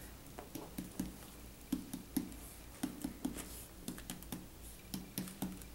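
Indirect percussion of the abdomen: a finger striking the middle finger of a hand laid flat on the belly. The taps come mostly in quick pairs, repeated every half second or so as the hand moves across the quadrants, each tap a soft, short low thud.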